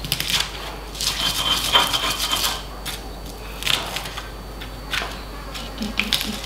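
Stone pestle crushing and grinding shallots, garlic and red chillies in a stone cobek mortar into spice paste: irregular scraping, crushing strokes with short knocks of stone on stone, busiest about one to two and a half seconds in.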